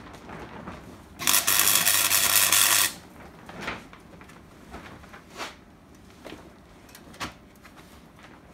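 MIG welder laying a short weld bead for about a second and a half, an even crackling buzz, fixing a steel repair plate to a vehicle chassis rail. A few short light knocks follow.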